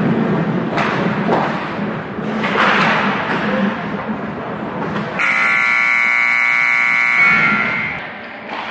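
Arena game buzzer sounding one steady buzzing tone for about two and a half seconds, starting about five seconds in and ringing briefly on in the rink as it fades. Before it, general rink noise with scattered knocks and thumps.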